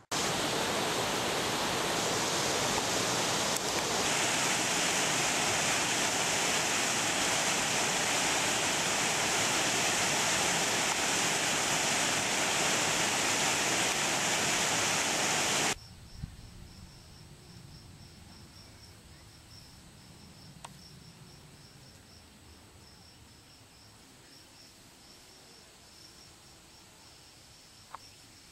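Waterfall cascading over rocks: a loud, steady rush of water that cuts off suddenly a little past halfway. After it, a quiet background with an insect's high, rapidly pulsing call.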